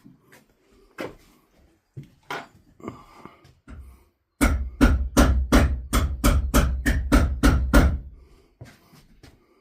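A few scattered knocks, then a fast, even run of about a dozen hammer strikes on wood, roughly three and a half a second, each landing with a heavy thud.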